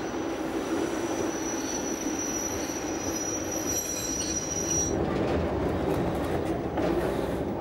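Metre-gauge electric train running along the track with a steady rumble and a thin, high wheel squeal that cuts off about five seconds in.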